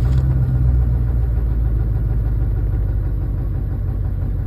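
Diesel 4x4 truck engine idling steadily seconds after a cold start at 31 degrees, a little louder at first and then settling. It started right up on its new glow plugs.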